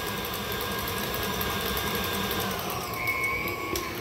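KitchenAid Classic Plus stand mixer running steadily, its flat beater creaming butter and sugar in a stainless steel bowl. The motor's pitch slides down about two and a half seconds in as the speed is turned down.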